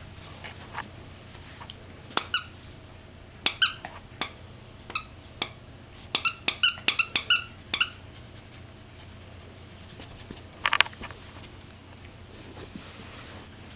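Plush frog squeaker toy squeaking as dogs bite and tug it: scattered single squeaks, then a quick run of about a dozen squeaks over a couple of seconds, and one more short cluster later on.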